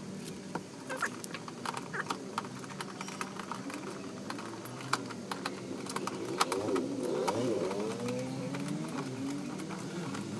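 Quick, irregular clicks and taps from a screwdriver working the plastic screw-type clips and screws of a car's front wheel-arch liner, sped up. From about halfway through, a wavering pitched sound that rises and falls runs beneath the clicks.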